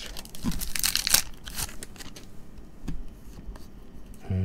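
A trading-card pack wrapper torn open, with a burst of tearing and crinkling about half a second in that lasts about a second. Soft rustles and clicks of the cards being handled follow, and a short hum of voice comes near the end.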